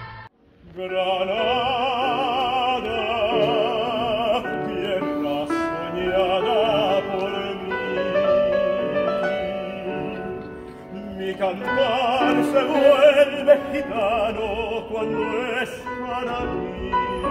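Operatic solo singing with wide vibrato over piano accompaniment, starting just after an abrupt cut from the previous music, with a short pause between phrases about two-thirds of the way through.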